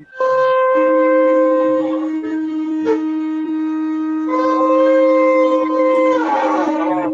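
Two shofars (ram's horns) blown at once in long held blasts, heard over an online-meeting connection. A lower blast holds steady from about a second in, while a higher one breaks off around two seconds, starts again past four seconds and wavers before stopping near the end.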